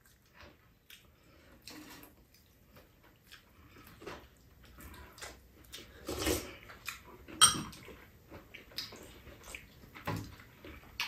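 Spoons clinking against bowls during a meal, with soft eating sounds and a slurp of soup from a spoon about six seconds in; one sharper clink comes about seven seconds in.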